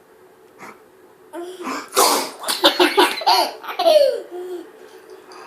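A man's loud pretend sneeze about two seconds in, followed by a toddler laughing in quick bursts that rise and fall in pitch.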